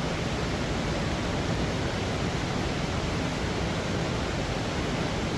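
Steady rushing of river water, an even unbroken noise with no distinct events.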